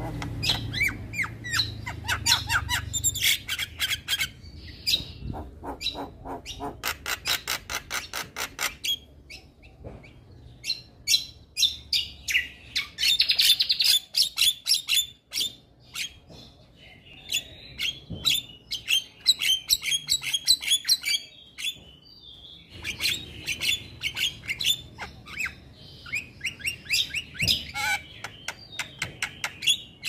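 Male Javan myna (jalak kebo) singing: fast runs of sharp clicking and chattering notes mixed with harsh squawks and whistled phrases.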